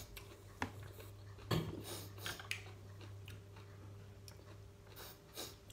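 Quiet eating sounds as fried chicken is picked apart by hand on a plate and pan: about half a dozen short clicks and taps, scattered and irregular, over a steady low hum.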